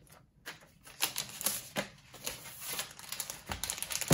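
Thin protective wrap sheet rustling and crinkling as it is handled around a MacBook Pro, with irregular small clicks and taps and a low thump near the end.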